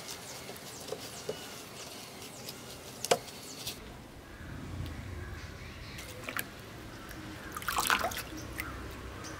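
Mint leaves dropped into a plastic bowl of water, with a cluster of splashes near the end. Earlier there are faint scattered clicks and one sharp click about three seconds in.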